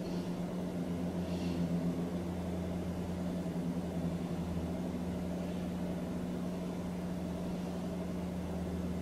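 Steady low electrical hum in a small room, with a couple of soft breaths in the first two seconds.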